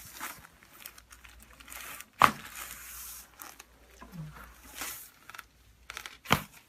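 Rustling and crinkling as the patient shifts on the chiropractic table, with two sharp cracks about two seconds and six seconds in: joints cavitating under a chiropractic adjustment, the release of a joint the chiropractor calls locked up.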